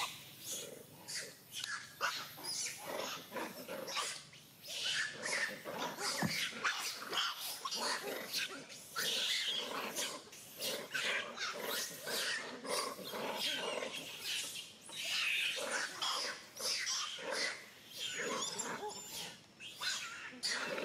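Young macaque screaming over and over in distress as adult macaques hold it down, in quick, irregular, high-pitched cries.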